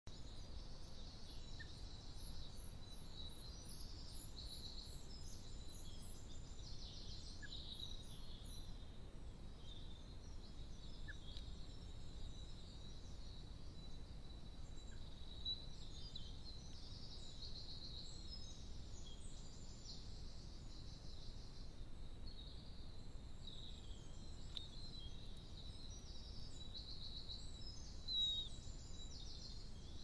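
Faint songbirds singing in the background over a steady low noise, with short warbled phrases throughout and a run of very high, thin repeated notes at about two a second over the first few seconds.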